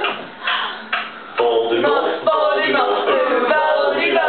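A small group of girls singing together without instruments, a quieter scrappy patch for the first second and a half, then the group singing strongly.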